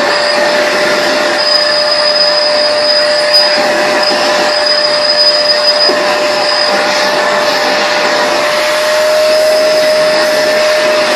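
Shop vacuum running steadily while vacuuming plywood: a loud rushing noise with a constant motor whine.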